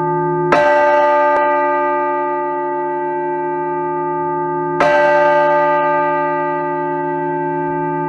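Large church bell tolled twice, about four seconds apart, each strike ringing on with a long, slowly fading hum.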